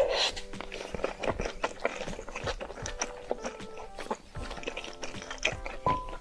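Close-up chewing of instant noodles, a rapid run of small wet clicks and crunches, over background music.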